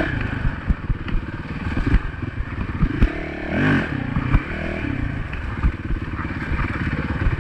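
Honda dirt bike's single-cylinder engine running at low trail speed, with sharp knocks and clatter from the bike riding over rough, rooty ground.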